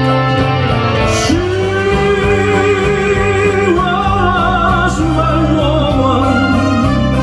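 Amplified singing over a backing track with a steady, repeating bass beat. About a second in, a voice comes in and holds long notes with a wide vibrato.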